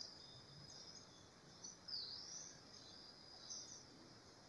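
Faint forest ambience: a steady high hum with scattered faint high-pitched chirps, and one whistled call that dips and rises about two seconds in.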